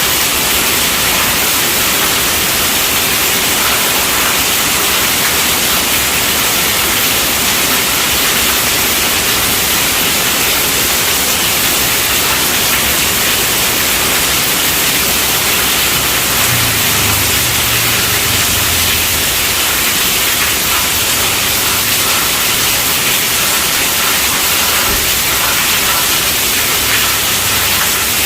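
Heavy rain drumming steadily on a tent roof, a dense even hiss. A faint low rumble comes in briefly around the middle.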